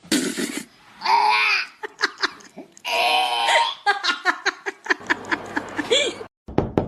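People laughing hard, loud bursts broken into quick repeated pulses. Near the end it cuts off, and a few sharp knocks follow.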